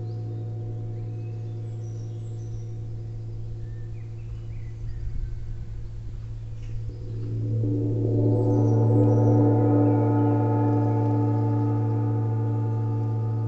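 Large suspended gong played with two soft padded mallets: a steady low humming ring, then a rolling build from about halfway that swells louder and brighter with many overtones about eight seconds in, ringing on and slowly fading. Faint birdsong chirps behind it.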